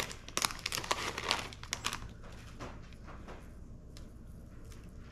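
Small plastic packaging bag crinkling, loud and dense for about the first two seconds, then a few faint scattered clicks and rustles.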